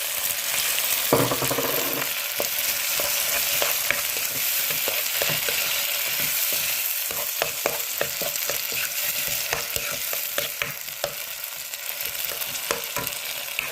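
Chopped onions, garlic and tomatoes frying in hot oil in a pan, with a steady sizzle and a spoon clicking and scraping against the pan as it is stirred.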